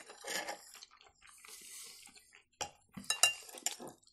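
Spoons scraping and clinking on a serving platter and bowls during a meal of plov, with a cluster of sharp clinks in the second half.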